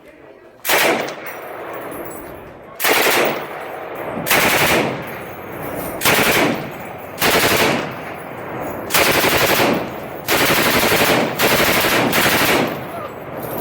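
Fully automatic machine guns firing about eight bursts of rapid fire, a second or two apart, with the shots echoing between bursts.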